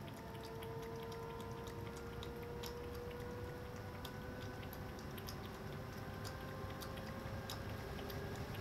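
Cat lapping water from a cup: a run of small, irregular wet licking clicks, over a faint steady hum.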